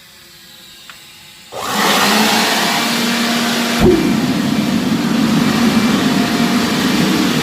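Faint hiss, then about a second and a half in a leaf blower starts and the propane forge's forced-air burner runs with a loud, steady roar and hum. A sudden thump comes about four seconds in, and the roar carries on.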